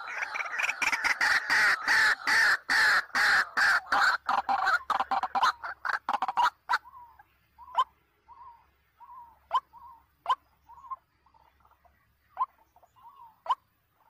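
White-breasted waterhen (ruak-ruak) calls: a loud, dense run of rapid repeated calls for about the first six and a half seconds, then sparse short notes and scattered clicks.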